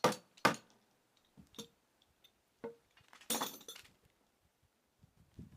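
Two sharp knocks about half a second apart, then lighter taps and a short scraping sound about three seconds in: glued wooden drawer parts being handled and knocked into place.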